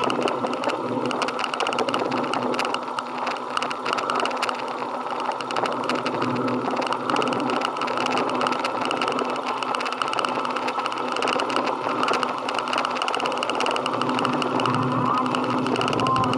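Motorcycle engine running steadily with a fast, even mechanical rattle.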